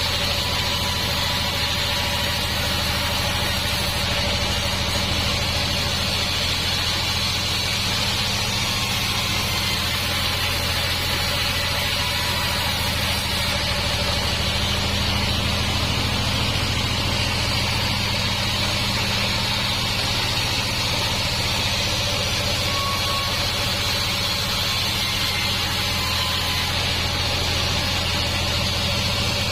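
Band sawmill machinery running steadily: a constant low hum with a hiss above it, with no change in pace.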